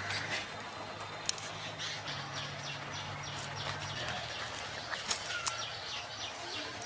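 Small birds chirping over and over, with a few sharp clicks as small fish are scaled and cut on a boti, and a low steady hum underneath.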